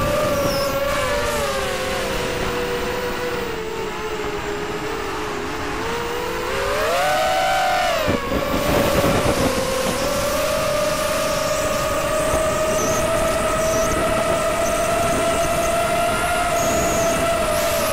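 A ZMR250 quadcopter's brushless motors and propellers whining, heard from the onboard camera over a rushing noise. The pitch sags a little and the motors drift apart in tone, then climbs sharply about seven seconds in as the throttle goes up. It drops back about a second later and then holds steady.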